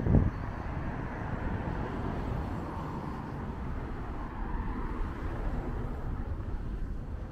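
Road traffic on a town street: cars going by, with their tyre and engine noise swelling and fading, over a low rumble. A brief low thump right at the start is the loudest sound.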